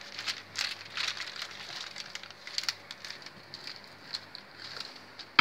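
Parchment paper rustling and crinkling under a wooden rolling pin as it is rolled over warm honey-and-sesame pasteli mix, in small irregular crackles, with a louder rustle at the very end.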